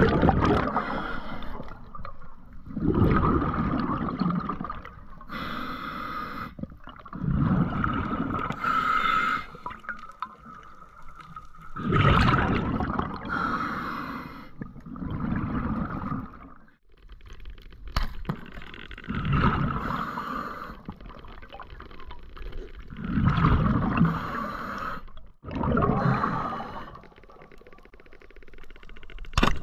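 Scuba diver breathing through a regulator underwater, heard through the camera housing: hissing inhalations and bubbling exhalations repeating every few seconds.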